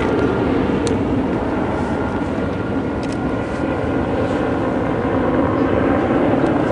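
Steady low rumble of boat engines running, with a few faint clicks.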